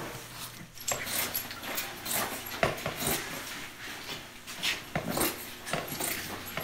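Scissors cutting through fiberglass cloth, an irregular string of crisp snips.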